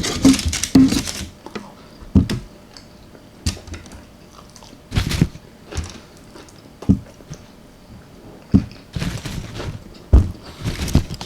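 Close-miked chewing of baked chicken parmesan: wet mouth sounds and bites in irregular bursts every second or two, busiest in the first second and again near the end.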